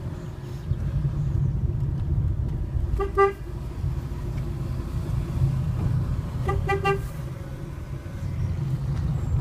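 Fiat Panda's car horn: one short toot about three seconds in, then a quick burst of short beeps near seven seconds, over the steady low rumble of the car's engine and tyres.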